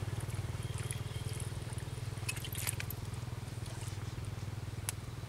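A small engine running steadily with a fast, low throb. A few light clicks come about two and a half seconds in, and one more near the end.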